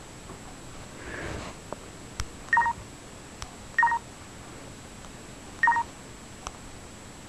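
LG KP500 Cookie touchscreen giving three short key-tone beeps as its menu buttons are pressed with the stylus, with faint taps of the stylus on the screen between them.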